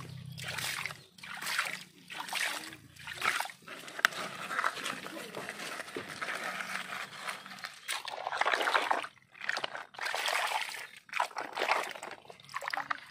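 Water splashing and sloshing as a hand scoops and throws it over a toy dump truck loaded with sand and pebbles, in repeated splashes roughly one a second.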